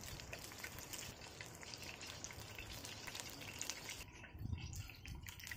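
Battered fish deep-frying in oil in a camp oven: a steady sizzle with many small crackles and pops. The sizzle briefly drops away about four seconds in.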